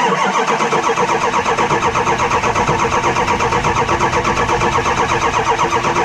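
Ford 6.0 Power Stroke V8 diesel turning over on its starter, jumped straight from the battery so it cranks without starting. It starts abruptly and keeps an even, regular rhythm with no dips, which the owner takes as a sign that cylinder compression is consistent and that there is no base engine problem.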